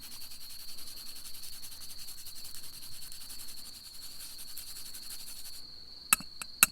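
Garlic being grated by hand: a fast, steady run of fine rasping strokes that stops about five and a half seconds in, followed by two sharp knocks near the end. Crickets chirp steadily in the background.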